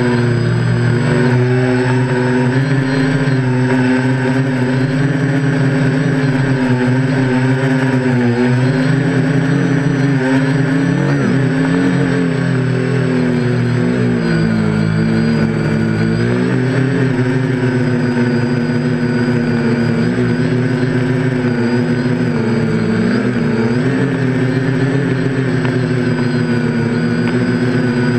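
Quadcopter's brushless motors and propellers buzzing in flight, recorded from a camera mounted on the airframe. Their pitch keeps rising and falling as the throttle changes.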